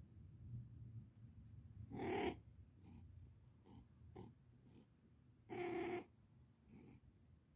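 Tabby cat giving two short meows, the first about two seconds in and a slightly longer one a few seconds later, with a few faint quieter sounds between.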